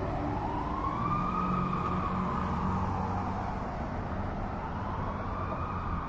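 Police car siren on a slow wail: the pitch rises, falls and rises again over a low rumble.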